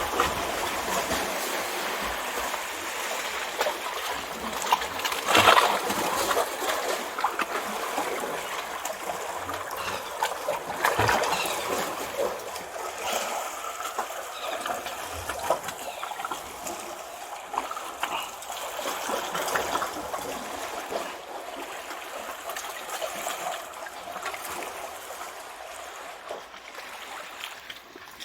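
Sea water washing and splashing among shoreline rocks, a continuous rushing with louder splashes about five and eleven seconds in.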